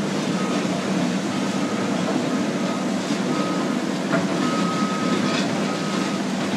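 Heavy equipment working on sand: wheel loaders' diesel engines running steadily, with a backup alarm beeping over them about once a second as a machine reverses.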